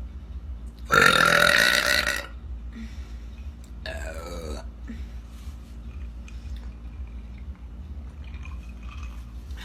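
A girl burping: one long, loud burp about a second in, then a shorter, quieter burp with a wavering pitch around four seconds in.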